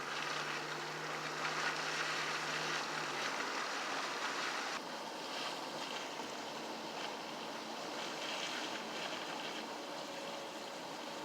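Steady outdoor street ambience: an even hiss of traffic and air, with a faint low engine hum for the first three seconds.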